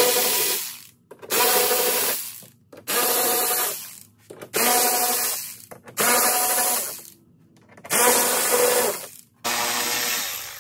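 Cordless drill driving an 8 mm socket, spinning out fender-liner bolts in seven short runs of about a second each, its motor whine starting and stopping between bolts.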